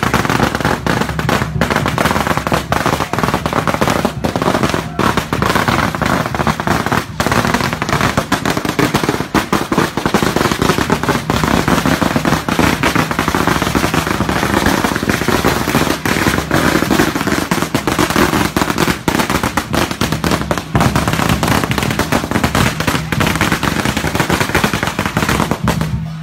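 Strings of firecrackers going off in a continuous rapid crackle of bangs.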